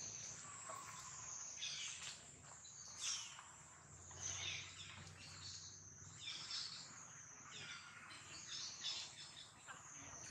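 Forest ambience: a steady, high-pitched insect drone with short bird chirps repeating every second or two.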